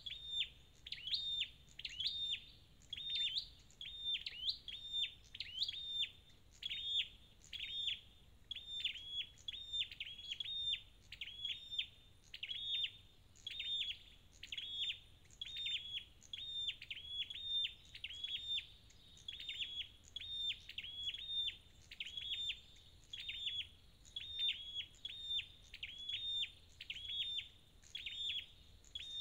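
A flowerpecker (chim sâu đầu đỏ) calling: a sharp, high call repeated over and over, roughly one to two a second, some of them in quick pairs.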